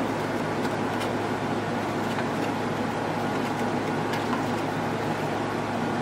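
Steady fan noise with a low hum, and a few faint clicks of the plastic radio-transmitter case being handled as its back cover comes off.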